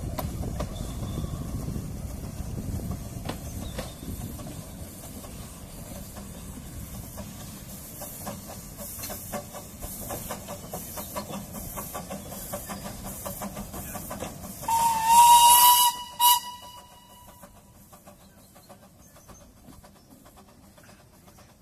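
Small narrow-gauge steam locomotive working along the line with steady exhaust beats, then giving its whistle about fifteen seconds in: one blast of about a second that bends up slightly in pitch as it starts, followed by a short toot.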